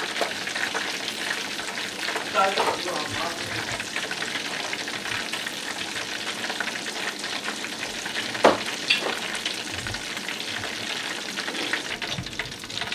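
Battered red pepper strips and mushrooms deep-frying in a pot of hot oil: steady sizzling and crackling of the bubbling oil. A single sharp clink comes about eight and a half seconds in.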